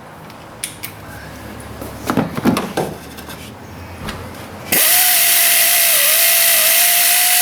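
A few light metal clinks of tools, then about three seconds in a power tool runs steadily with a single even whine, spinning a fastener off the wire terminal of a truck's starter solenoid.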